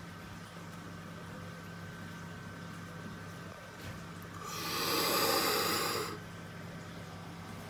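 A loud breathy exhale close to the microphone, lasting about a second and a half just past the middle, over the steady low hum of reef aquarium equipment.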